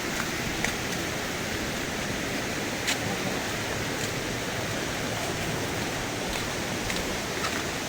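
Steady, even rush of water falling at a waterfall, with a couple of faint clicks.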